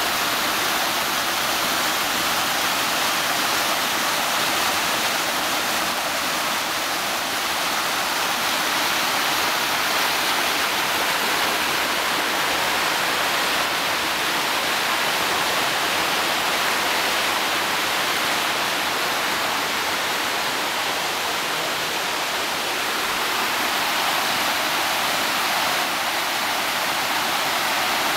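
Waterfall on a river: a steady, unbroken rush of falling water.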